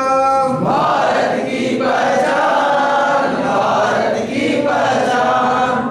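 A man sings a short lead line, then a group of men chants the response together in unison, a devotional-patriotic slogan song; the group's singing stops abruptly near the end.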